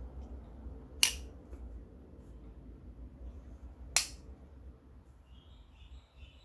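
Cold Steel Talwar folding knife's blade snapping: two sharp metallic clicks about three seconds apart as the blade is folded and swung open and the lock engages.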